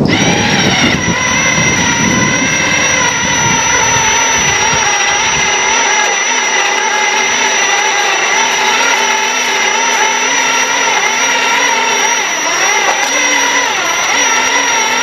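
Kubota Grand L3560 tractor running while it pulls scrap wire through a wire stripper. The engine note wavers slightly, with a steady high whine over it throughout.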